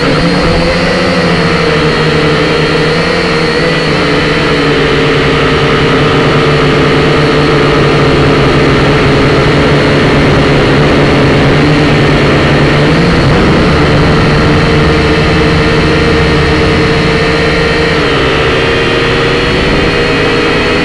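Syma X5C quadcopter's four small electric motors and propellers whirring loudly and close up, a steady buzzing whine of several tones whose pitch shifts a little now and then as the throttle changes.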